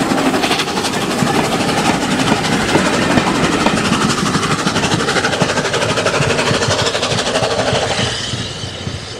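SE&CR P class tank engine No. 323 'Bluebell' passing close with rapid exhaust beats, followed by its vintage carriages clattering over the rail joints. The sound fades from about eight seconds in as the train draws away.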